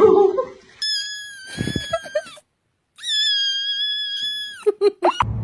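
A cat gives two long, high-pitched squeals, each held steady for about a second and a half, with a short gap between them. A few brief rising squeaks follow near the end.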